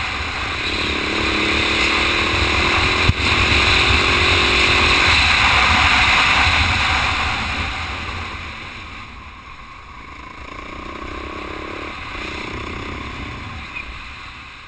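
Husaberg 450 FE single-cylinder four-stroke dirt bike engine running at speed on a gravel road, heard under heavy wind rush on a helmet camera. A sharp click about three seconds in; from about eight seconds the rider eases off and the sound drops and stays lower.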